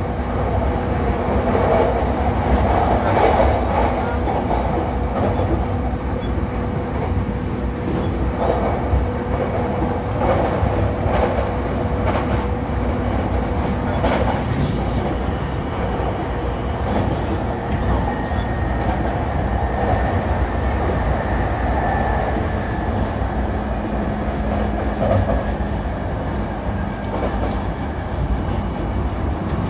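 Running noise of a JR East E233-3000 series electric commuter train moving along the line: a steady rumble of wheels on rail with light rail-joint clicks and faint steady motor tones.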